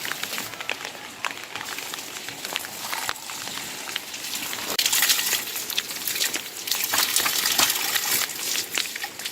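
Rain pattering on a surface, a crackly hiss with many small clicks that grows denser and louder about halfway through.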